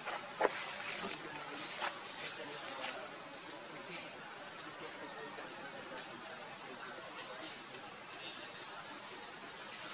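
Steady high-pitched drone of insects, with a brief faint tap about half a second in.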